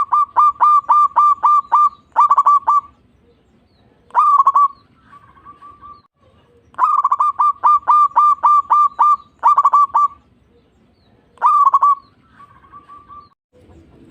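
Zebra dove (perkutut) singing two song phrases. Each phrase is a rapid run of clear, evenly spaced coo notes, then a single stronger note and a few soft trailing notes.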